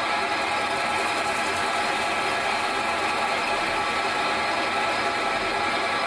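Small bench metal lathe running steadily, its four-jaw chuck spinning while a turning tool faces the end of a phosphor bronze bushing blank.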